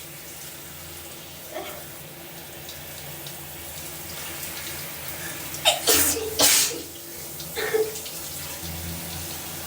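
Shower water running steadily, with a woman's loud burst of sneezing about six seconds in and a short voiced sound just after it.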